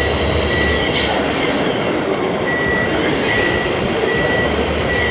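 Electronic reversing beeper of an RC model truck or construction machine, sounding in short, even high beeps about a second apart, over steady machine and hall noise.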